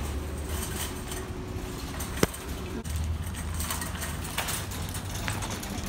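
Wire shopping cart rolling over a concrete sidewalk, its basket and wheels rattling, with a sharp click about two seconds in.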